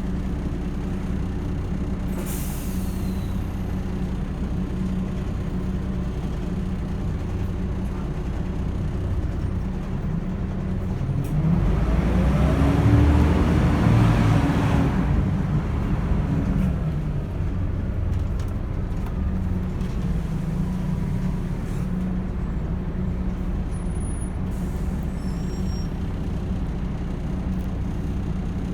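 Volvo B10BLE bus engine running, with a short air-brake hiss about two seconds in. Around the middle the engine gets louder and its pitch rises as the bus accelerates, then it settles back to a steadier run.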